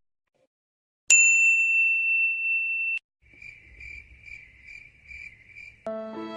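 A single bright ding that rings steadily for about two seconds and is cut off, followed by a cricket chirping in even pulses, about two a second. A new piece of music starts near the end.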